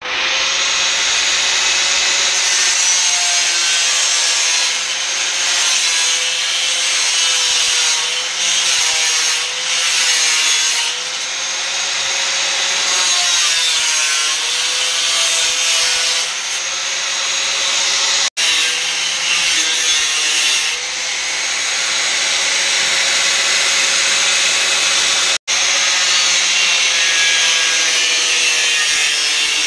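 Electric angle grinder cutting and grinding a sheet-steel repair panel, its motor whine wavering slightly as the wheel bites into the metal, over a steady hiss. The sound breaks off for an instant twice.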